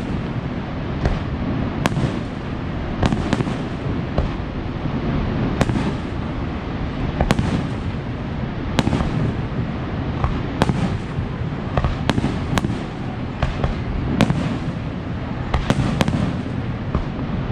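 Aerial fireworks display: sharp bursts going off at irregular intervals, about one every second, over a steady low rumble.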